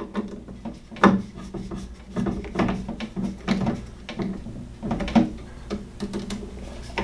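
Light, irregular metallic clicks and taps, about one or two a second, as the screws holding the gas-valve plate of a Navien NPE tankless water heater are tightened down in an X pattern with a screwdriver during its natural-gas-to-propane conversion.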